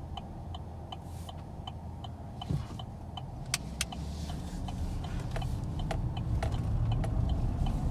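A car driving, heard from inside the cabin: a steady low engine and road rumble that grows a little louder near the end. Under it an even ticking runs at about two a second, and two sharp clicks come about three and a half seconds in.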